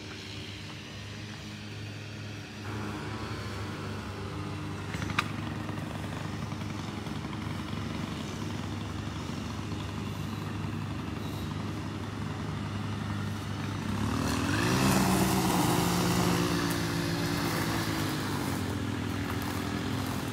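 Small gas engines of a string trimmer and a lawn mower running. About fourteen seconds in, one engine revs up, rising in pitch and getting louder, and holds at the higher speed. There is a single sharp click about five seconds in.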